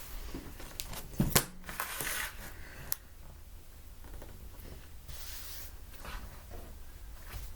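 Fabric being handled and cut with scissors: rustling cloth with a few sharp clicks of the blades.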